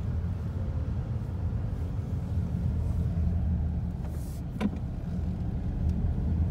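Steady low rumble of a car's engine and tyres on the road, heard from inside the cabin, with one brief knock about four and a half seconds in.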